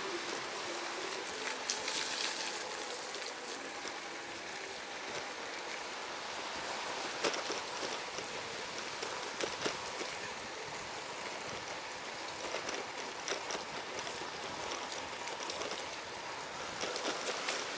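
Steady watery hiss of water on wet outdoor surfaces, with scattered light drip-like taps.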